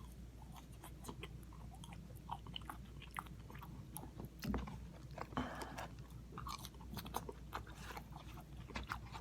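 A person chewing crispy fried food close to the microphone, with many small crunches and mouth clicks. There is a brief hiss about five seconds in.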